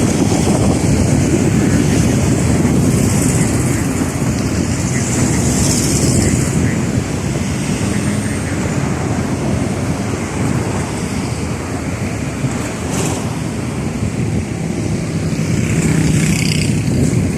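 Boeing 737-800 jet's CFM56 turbofan engines at takeoff thrust during the takeoff roll, a steady low rumble with high hiss, with wind buffeting the microphone.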